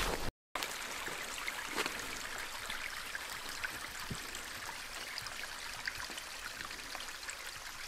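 Small forest stream trickling steadily, with faint scattered ticks of dripping water. It starts after a brief dropout just under half a second in.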